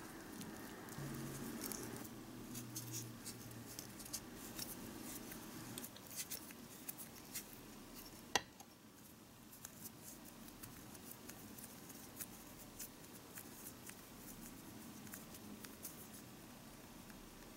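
A small wooden stick scraping and clicking against a tiny glass bowl as flour is mixed into bread dough, then fingers pressing and kneading the dough in the bowl. Many faint, sharp clicks, with one louder click about eight seconds in.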